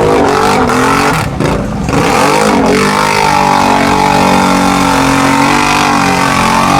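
Off-road vehicle engine revving hard and held at high revs through a mud-bog run, the pitch dipping and climbing again about two and a half seconds in.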